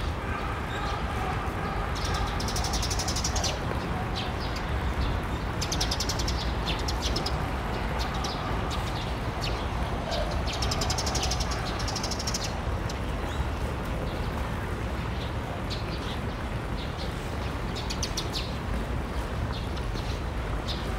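Outdoor background of a steady low rumble with faint voices, broken several times by spells of rapid, high bird chirping.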